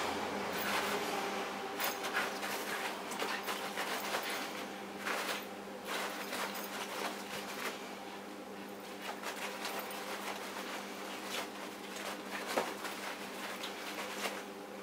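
Dog pawing and nosing at a pile of cloth to make a bed, the fabric rustling and scuffing in short irregular bursts over a steady background hum.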